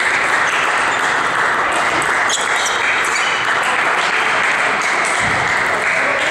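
Table tennis ball clicking off bats and table in a rally, a few sharp ticks over a loud, steady din from a sports hall with other tables in play.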